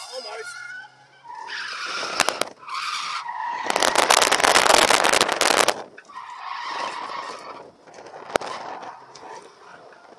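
Tyres squealing and car noise from inside the cabin of a car being drifted, with a much louder rushing stretch of about two seconds in the middle.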